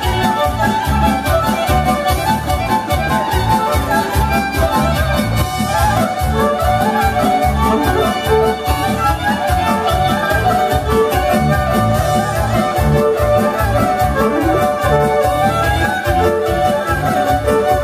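Live violins, one of them electric, playing a lively folk dance tune over accordion and a steady beat.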